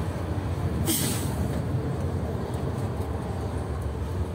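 Tram in motion heard from inside the passenger cabin: a steady low rumble, with a short hiss about a second in.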